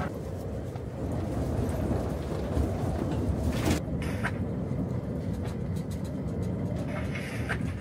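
Strong wind buffeting the tent, a steady low rumble with a couple of sharp cracks, about three and a half seconds in and again near the end.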